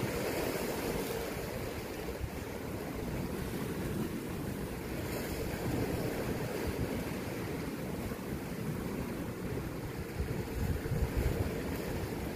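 Sea waves washing and splashing against shoreline rocks, a steady rush, with wind buffeting the microphone in a low, gusty rumble.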